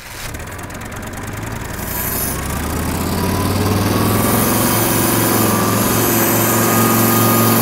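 Kubota M5700 tractor's diesel engine being cranked and catching in the first couple of seconds, then running and getting steadily louder as the throttle is opened toward full RPM. This engine starts but stalls as soon as it is loaded, which the owner puts down to a fuel-system problem.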